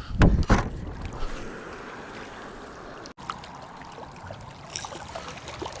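Steady wind and water noise at the water's edge, with two heavy thumps in the first half second and a brief dropout about three seconds in.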